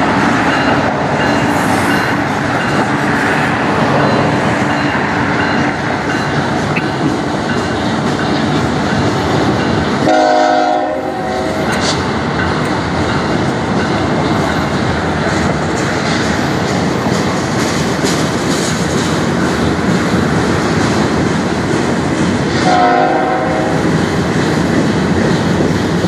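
Freight train's diesel locomotives and cars rolling steadily along the track, with the horn sounded twice, about a second each time, near the middle and again near the end.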